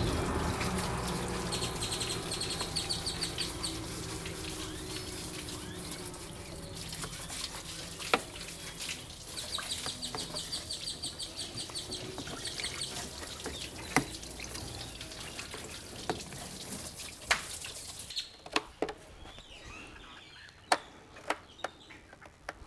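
Water running and trickling, fading away and dropping off about eighteen seconds in. A small bird trills twice in the background, and there are a few sharp ticks near the end.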